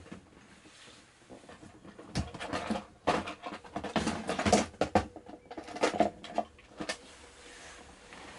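Rummaging clatter: hard items knocked, shifted and rattled about while a screw tray is fetched, in irregular bursts from about two seconds in until about seven seconds in.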